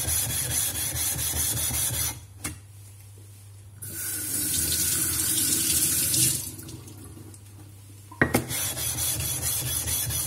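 Tap water running into a sink in three spells of two to three seconds each, with short pauses between.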